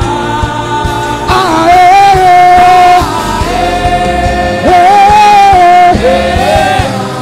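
Gospel worship music: a singer holding long notes that slide up and down over a steady instrumental backing with light percussion.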